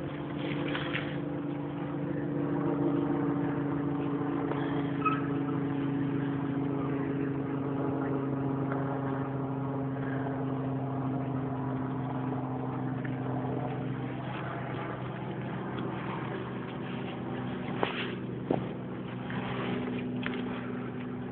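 Engine running steadily at an even pitch, dropping slightly in pitch about two-thirds of the way through, with a couple of sharp knocks near the end.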